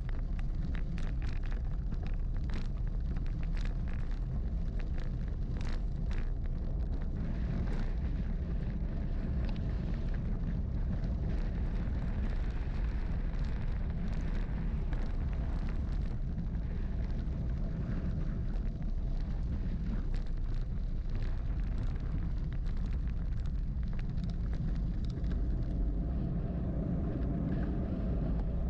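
Wind buffeting the microphone of a camera riding on a moving bicycle: a steady low rumble with scattered ticks and rattles, most of them in the first half.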